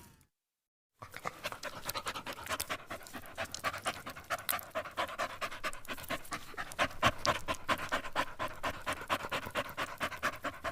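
Rapid, rhythmic panting, like a dog's, starting about a second in and going on steadily.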